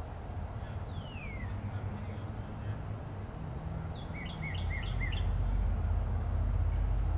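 Low, steady rumble of a Boeing 747-8F's four GEnx turbofans cruising high overhead, swelling about four and a half seconds in. A songbird gives one falling whistle about a second in and a quick run of four chirps near the middle.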